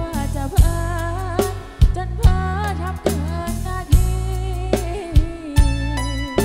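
A woman singing a Thai pop song live into a microphone with a band: electric bass and a steady kick-drum beat, played loud through a large PA system with stacked bass cabinets.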